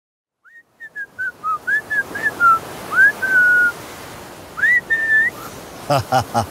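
A person whistling a slow, wandering tune of short notes, some sliding up or down, with a pause before two last notes. A steady wash of surf lies underneath.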